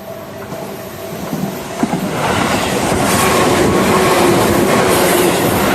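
Tobu 10000-series electric train passing close by, growing louder over about two seconds and then running past with a steady rush of wheels on rail, with clacks of wheels over rail joints about three and five seconds in.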